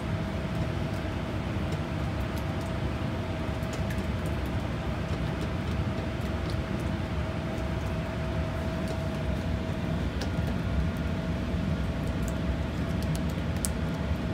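Steady low rumble of a lit gas range burner and kitchen ventilation running, with a faint steady whine through it. Light scattered clicks of a silicone spatula scraping a stainless steel bowl as melting chocolate is stirred over a double boiler.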